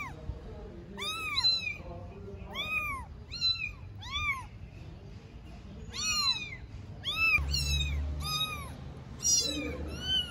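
Four-week-old kittens meowing over and over: high, thin calls that each rise and fall, coming one after another with short gaps.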